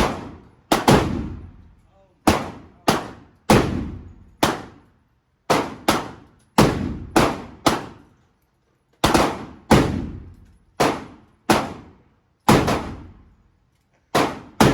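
Gunfire: a rapid, irregular series of about twenty sharp shots, sometimes two within half a second, each followed by a ringing decay.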